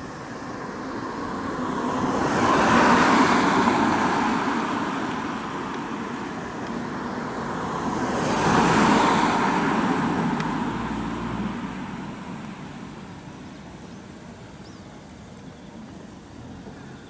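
Two cars passing by on the road, one about three seconds in and another about nine seconds in, each swelling up and fading away, over a quieter hum of distant traffic.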